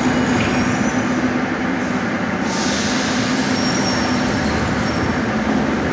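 Steady rumble and hum of metro trains at an underground station platform, with a low steady tone running through it.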